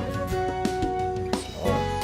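Background music for a children's cartoon, with held notes over a regular beat.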